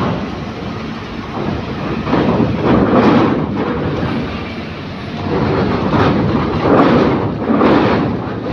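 Heavy diesel trucks rolling off a roll-on/roll-off ferry over its steel ramp: engines running with a steady rumble, and loud clanks and rattles as the wheels cross the ramp plates and joints, several coming in quick pairs.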